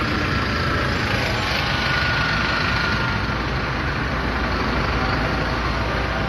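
Steady low rumble of idling vehicle engines mixed with road traffic noise.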